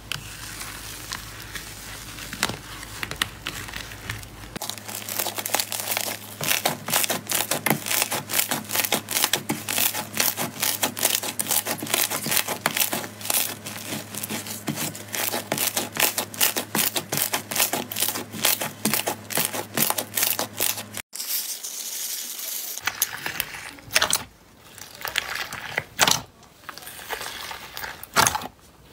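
Slime being pressed and stretched by hand, with a dense, fast crackling and popping of trapped air. After a sudden break near the end come sparser, separate squishes and pops.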